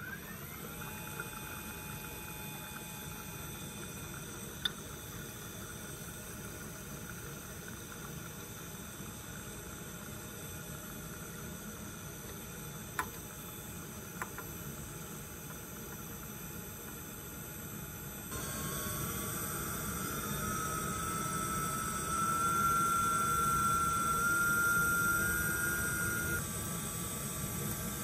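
Laboratory homomixer motor running with a steady whine as it stirs liquid in a beaker, after winding up in pitch at the start. About 18 seconds in its speed is raised: the sound gets louder and the whine climbs slowly in pitch. A few small clicks are heard along the way.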